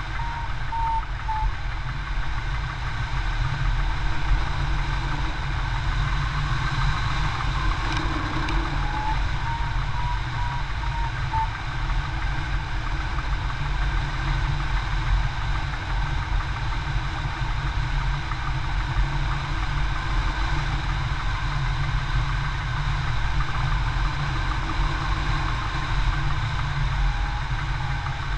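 Airflow rushing over the microphone of a hang glider in flight, a steady low rumble, with short series of a flight variometer's quick beeps near the start, around ten seconds in and near the end: the climb tone that signals the glider rising in lift.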